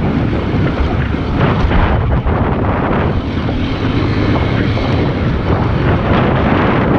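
Heavy wind rumble on the microphone of a moving small single-cylinder motorcycle, its engine running underneath.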